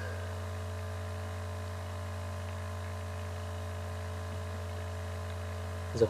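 Steady low electrical hum with a faint hiss behind it: the noise of a noisy microphone recording setup, with nothing else happening.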